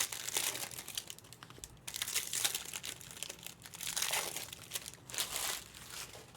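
Plastic wrappers of Panini Prizm basketball card packs crinkling and rustling in irregular bursts as packs are opened and cards handled.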